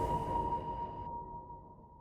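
The fading tail of an intro music hit: a steady high ringing tone and a reverberant wash dying away to nothing near the end.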